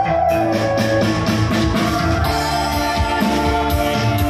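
Upbeat instrumental music with a steady beat, played on an electronic keyboard, with no singing.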